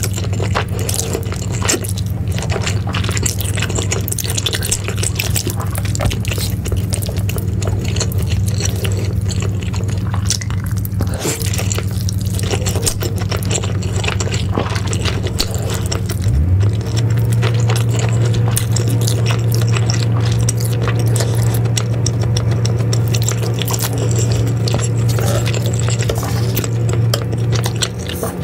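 Close-up mouth sounds of eating soft instant noodles with melted cheese: wet slurps, chewing and many small sticky clicks. Under them runs a loud, steady low hum that steps slightly in pitch a little past the middle.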